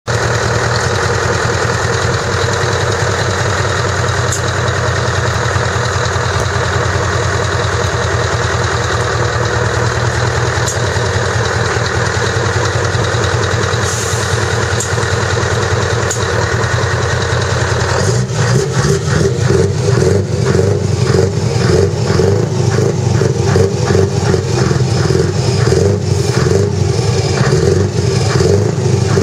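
Truck tractor unit's diesel engine running steadily. About two-thirds of the way in it turns louder and choppier, with a fast pulsing exhaust beat, heard close to the short side exhaust pipe.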